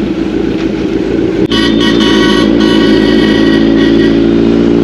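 Road traffic with a motorcycle engine running. About a second and a half in, a vehicle horn honks for about a second, and after it a steady engine hum goes on.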